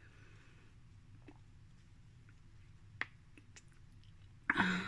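Small mouth sounds of a person drinking a smoothie through a straw: a sharp click about three seconds in, and a short breathy burst near the end.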